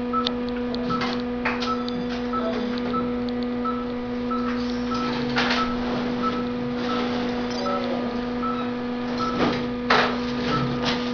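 Hospital medical equipment: a steady electrical hum with a short high beep repeating about twice a second, as from a patient monitor. Occasional rustles and knocks come from handling, the loudest near the end.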